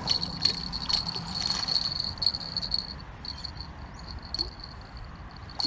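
A small hooked bream splashing at the water's surface as it is brought in to the bank, with a few short splashy clicks. Under it runs a steady, pulsing high insect trill.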